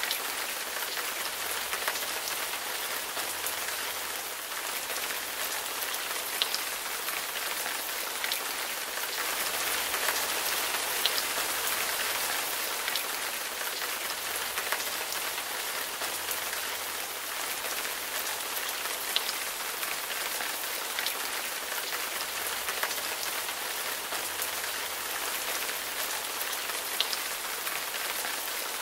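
Steady rain falling, an even hiss with an occasional sharp tick of a single drop landing close by.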